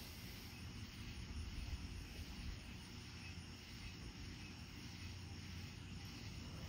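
Night insects chirping steadily in a high even chorus, over a low steady rumble.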